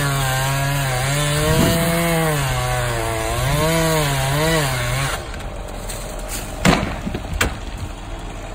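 Gas chainsaw running while cutting a tree trunk, its engine pitch dipping and recovering over and over as the chain bites into the wood. The saw stops about five seconds in, followed by a couple of sharp knocks.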